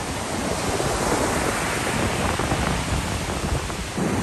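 Steady rush of ocean surf breaking along a beach, mixed with wind on the microphone. It swells slightly midway and dips briefly near the end.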